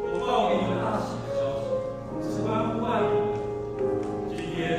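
Church choir singing a Christmas hymn in parts, sustained notes moving from one to the next every second or so.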